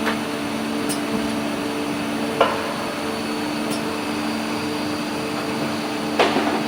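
Automated LPG cylinder valve assembly and leak-test machine running: a steady machine hum over a constant noisy background, broken by a few sharp mechanical clicks and knocks, the loudest about two and a half seconds in, and a short rattle of knocks about six seconds in.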